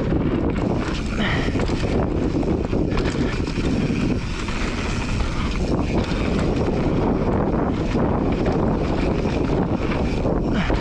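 Mountain bike riding fast down a dirt trail: steady wind noise on the microphone over the rumble of tyres on hardpacked dirt and the rattle of the bike over rough ground.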